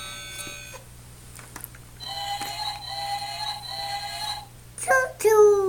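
Toy train's electronic sound chip playing steady tones, then three long held notes. Two short, loud sounds falling in pitch follow near the end.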